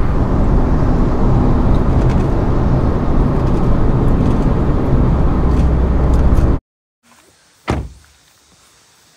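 A car's steady road and engine rumble heard inside the cabin while it drives, cutting off abruptly after about six and a half seconds. After a short quiet stretch comes a single thump.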